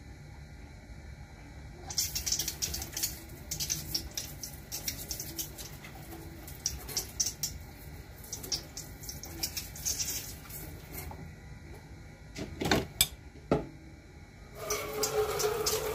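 Water splashing at a kitchen sink as hands are washed, coming in irregular bursts for several seconds, followed by two sharp knocks.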